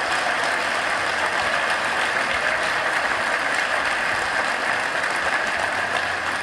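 Large audience applauding, dense, steady clapping.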